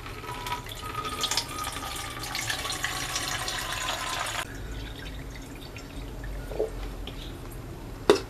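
Orange-peel soaking water poured from a jar through a cloth strainer, splashing steadily and then stopping abruptly about four and a half seconds in. A single sharp knock near the end.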